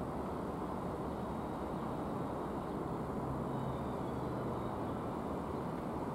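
Steady rumbling noise of an approaching passenger train hauled by an EP20 electric locomotive, with a faint low hum in the middle.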